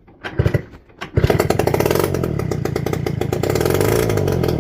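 Honda Melody scooter's small two-stroke engine being started: a few short pops as it is turned over, then it catches about a second in and runs loud, fast and even with no carburettor or exhaust fitted, on fuel dropped into the spark plug hole, starting to fade at the very end.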